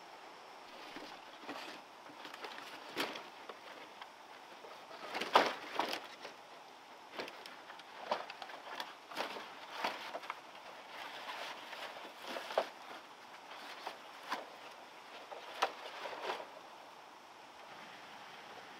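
A bundle of dry bamboo poles being handled and carried, the poles knocking and rattling against each other amid crunching on dry leaves and twigs, as a string of irregular knocks over a steady hiss; the loudest knocks come about five and a half seconds in.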